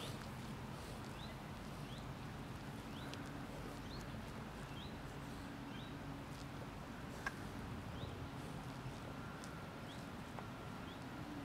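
Quiet outdoor ambience: a steady low hum, with faint short high chirps repeating about once a second.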